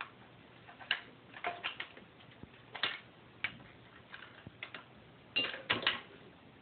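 Irregular small clicks and taps of a hooked copper wire and a tool being worked in a string trimmer's fuel-line hole to fish the wire out, with a quick cluster of louder clicks near the end.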